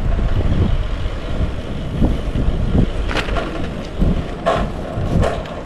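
Bicycle being ridden, rattling with a few sharp clanks about three and a half, four and a half and five seconds in, over a steady low rumble of wind on the microphone. The rider calls the bike noisy.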